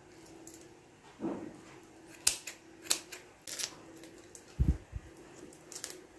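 Raw shrimp being peeled and deveined by hand: a scattered series of sharp clicks and snaps from the shells and kitchen scissors, with a couple of low thumps about four and a half seconds in, over a faint steady hum.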